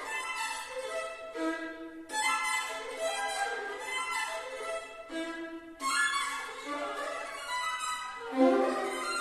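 Violin playing a melodic passage in three phrases, each new phrase starting about 2 and 6 seconds in, with a loud low note near the end.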